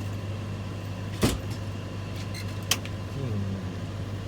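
Steady low machine hum running underneath, with two sharp clicks: a loud one about a second in and a smaller one near the middle.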